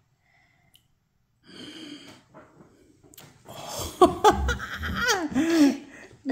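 A breathy gasp about one and a half seconds in, then from about three and a half seconds excited laughing voices with pitch sliding up and down.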